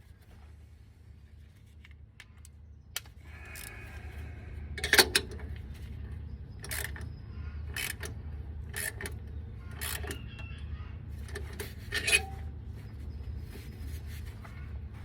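Sharp metallic clinks and knocks of tools on a truck's exhaust pipe and clamps as they are loosened, shifted and tightened. They come irregularly, a few faint ticks at first and then a dozen or so louder knocks, the loudest about five and twelve seconds in.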